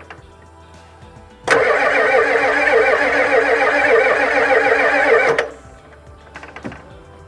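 Ford 7.3 L IDI diesel cranking on its starter for about four seconds without catching, starting and stopping abruptly. The fuel filter was fitted dry, so the fuel system is full of air.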